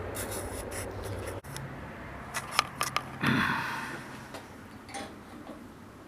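Metal parts of a wood lathe being handled and tightened by hand: several sharp clicks and a short scrape.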